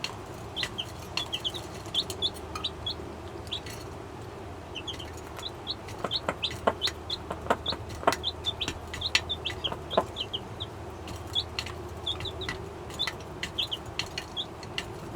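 Baby chicks peeping with many short, high cheeps, over the low clucking of a Jersey Giant mother hen calling her brood to food. Sharp ticks and taps come through, thickest in the middle.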